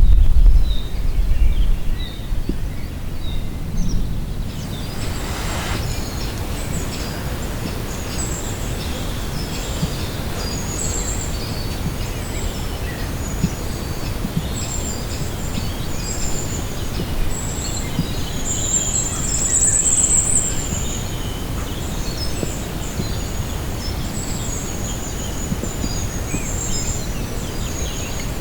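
Outdoor ambience: a loud low rumble for the first couple of seconds, then a steady rustling hiss with small birds chirping high and often, and a quick run of twittering about twenty seconds in.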